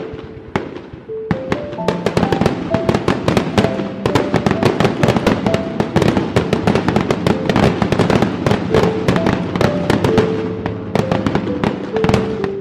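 Fireworks crackling and popping in a dense rapid stream that thickens about a second and a half in, over music playing a simple melody of held notes.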